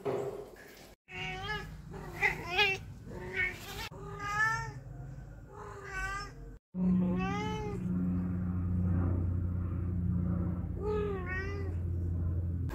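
Ginger long-haired Persian cat meowing again and again, about eight short meows, most rising then falling in pitch, broken by two abrupt cuts to silence. A steady low hum runs under the last few meows.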